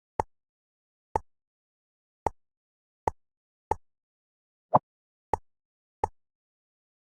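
Eight short, sharp clicks at uneven spacing, roughly one a second, with silence between them; one a little past the middle is louder and duller.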